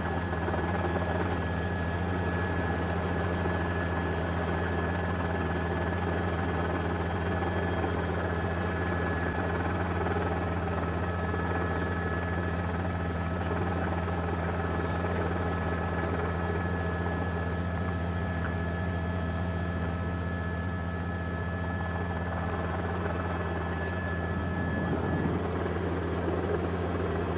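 Steady low drone of a news helicopter's rotor and engine, heard inside the cabin through the reporter's open microphone, with faint steady high whines above it.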